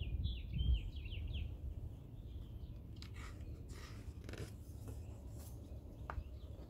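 A songbird's quick series of notes stepping down in pitch over the first second and a half, then the rustle and flap of a hardcover picture book's paper pages turned by hand a few seconds in.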